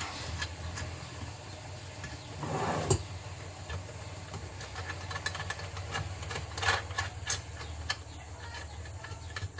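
Scattered small metal clicks and handling noises as a nut is spun onto a bolt by hand, over a low steady hum.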